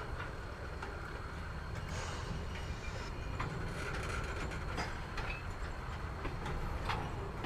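Herzog gravel train's hopper cars rolling slowly past: a steady low rumble with scattered clanks and clicks from the wheels and cars.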